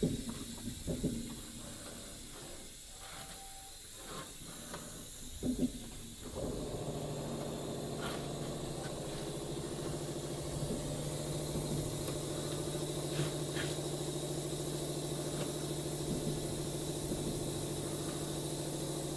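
CNC panel bending machine working a metal sheet through its automatic bending cycle. There are a few knocks and clicks at first, then from about six seconds a steady machine hum with a low tone sets in and holds, with occasional faint clicks.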